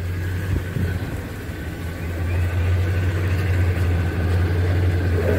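1985 Chevy C10's 305 V8 idling steadily through its dual exhaust, growing louder about two seconds in.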